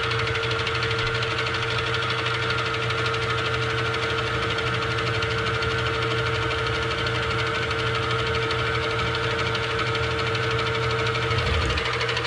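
Milling machine running steadily with a steady whine as a small starter drill bit cuts a pilot hole into a two-stroke crank's flywheel, removing metal to balance the crank.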